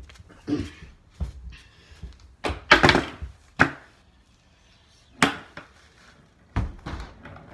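Skateboard clacking and thudding on a concrete floor as the deck's tail and wheels strike down during tricks: about eight separate knocks at uneven intervals, the loudest about three seconds in, with a short echo of a small room.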